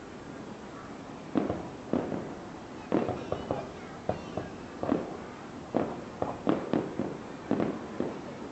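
Aerial fireworks bursting in an irregular volley of sharp bangs, about a dozen over several seconds, starting about a second in.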